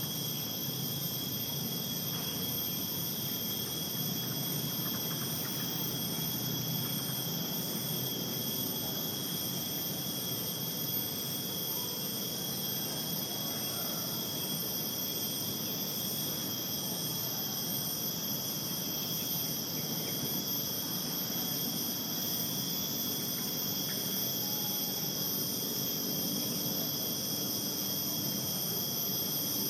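Insect chorus of crickets and similar insects: several steady high-pitched trills at different pitches, one of them pulsing in a quick, even rhythm, over a low, even background noise.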